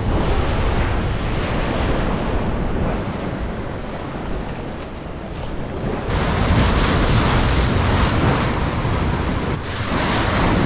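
Sea surf breaking and washing over shoreline rocks, with wind buffeting the microphone. The surge gets louder about six seconds in as a bigger wave crashes onto the rocks.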